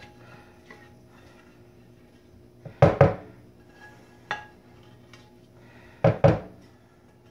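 A spatula knocking and scraping against a stainless steel saucepan as a sticky syrup mixture is scraped out of it. There is a pair of clanks about three seconds in, a lighter one a second later, and another pair near the end.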